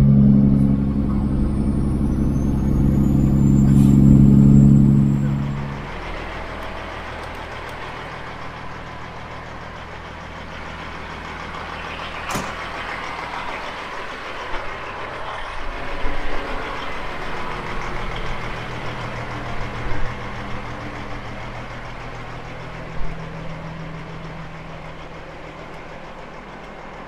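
Kenworth W900 semi truck's diesel engine running on the highway, heard from the truck itself; it grows louder, then cuts off after about six seconds. Then strong wind blowing across an open lot, with a steady low engine hum underneath and a few scattered knocks.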